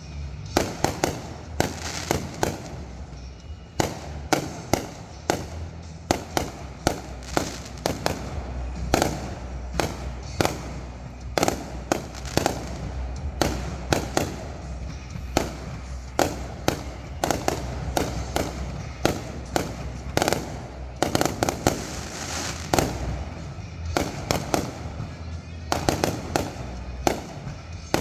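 Fireworks going off in quick succession: many sharp bangs and crackles a second, irregularly spaced, over a continuous low rumble.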